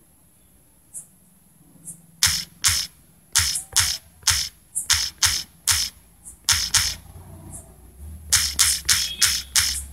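Phone on-screen keyboard key-press clicks as an email address is typed letter by letter: a quick, uneven run of short sharp ticks that starts about two seconds in and pauses briefly near the end.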